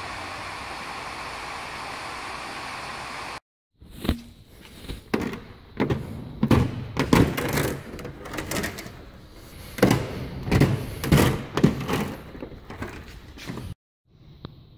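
A steady rushing noise for about three seconds, then after a short break a run of irregular knocks, thuds and clatter from hands-on work in the hangar, a dozen or so sharp hits over about ten seconds.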